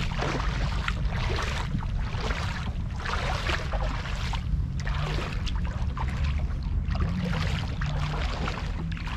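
Wind buffeting the microphone: an uneven low rumble with repeated short bursts of hiss.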